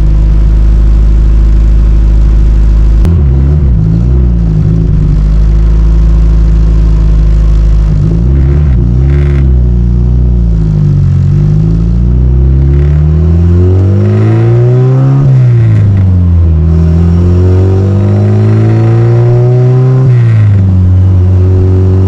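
Straight-piped turbocharged Honda B-series four-cylinder engine, loud, running steadily at first and then rising and falling in pitch several times as it is revved or driven, peaking about 15 seconds in and dropping back near the end. Its choppy note sounds like a misfire, which the owner puts down to the straight-pipe exhaust rather than a fault.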